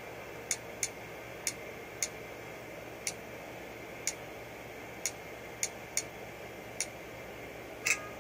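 Irregular clicks of typing on the HP Slate 21's touchscreen keyboard, about a dozen key presses spaced half a second to a second apart, with a louder, slightly longer click near the end.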